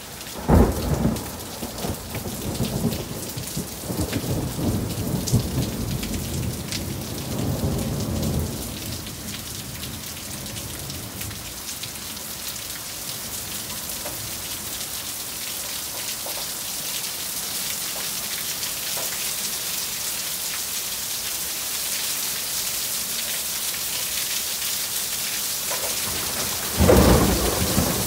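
Heavy rain falling steadily, with thunder. A loud thunderclap breaks about half a second in and rumbles on for about eight seconds, and another loud rumble of thunder starts near the end.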